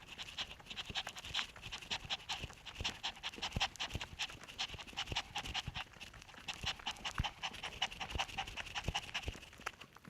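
Shih Tzu puppy panting quickly and steadily, then stopping at the end.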